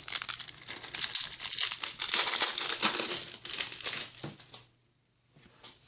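Wrapper on a pack of card dividers crinkling and tearing as it is pulled open by hand; it stops about four and a half seconds in.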